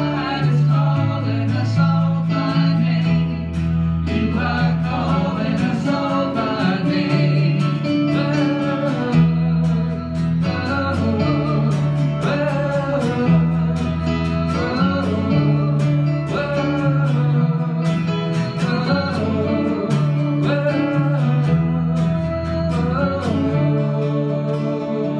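Worship song sung live: voices singing into microphones over instrumental accompaniment, with held bass notes and a steady beat.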